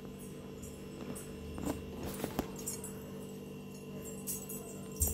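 A slotted metal spatula scraping and clinking against a metal frying pan a few times as chopped onions are stirred, over a steady electrical hum.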